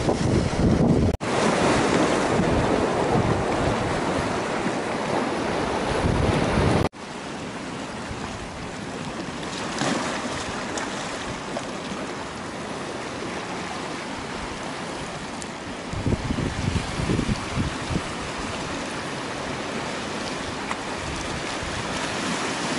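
Waves washing on a pebbly shore, with wind buffeting the microphone. The sound breaks off abruptly about a second in and again about seven seconds in; after that the wind rumble eases and the surf is steadier, with a few gusts around sixteen seconds.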